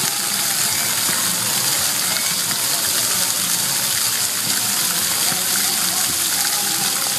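Splash-pad ground fountain jets spraying water: a steady rushing hiss of spray and splashing.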